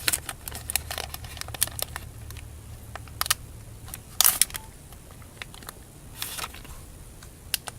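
Foil booster-pack wrapper crinkling and trading cards being handled: scattered rustles and clicks, the loudest a little past four seconds, over a steady low hum.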